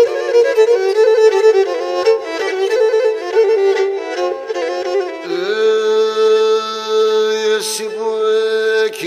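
Pontic lyra (kemenche) playing a quick instrumental melody in a Pontic folk song. About five seconds in, the run gives way to a long held note over a lower steady drone.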